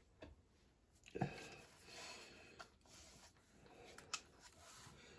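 Near silence in a small room, broken by faint handling noises: a soft knock about a second in, some light rustling, and a sharp click about four seconds in.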